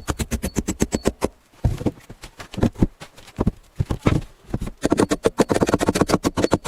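Rapid, even knocking, about nine sharp strokes a second. It breaks off after about a second, gives a few slower, scattered knocks, then starts again about five seconds in.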